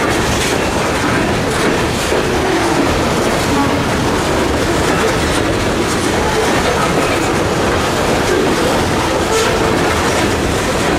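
Covered hopper cars of a Norfolk Southern freight train rolling past: a steady rumble of steel wheels on the rails, with clickety-clack as the wheels pass over the track.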